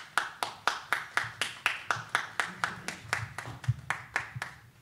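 A small group clapping in an even rhythm, about four claps a second.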